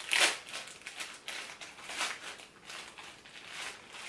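Plastic packaging of a box of individually wrapped pads crinkling and rustling as it is handled. The sharpest crinkle comes about a quarter second in, followed by softer, intermittent rustles.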